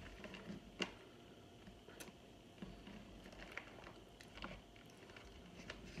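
Close, faint crunching of someone chewing hard baked cornstarch chunks: scattered sharp crunches and clicks, the loudest about a second in.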